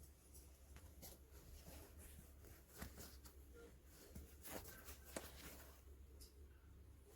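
Near silence: a low steady hum with a few faint soft clicks and rustles.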